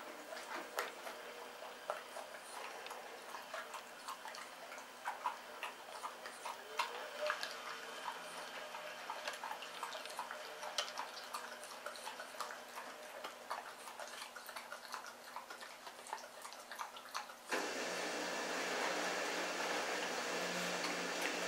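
Shar-Pei puppy chewing raw chicken ribs: irregular wet crunches and sharp clicks of bone between its teeth. About 17 seconds in, a louder steady rushing noise starts suddenly and carries on over the chewing.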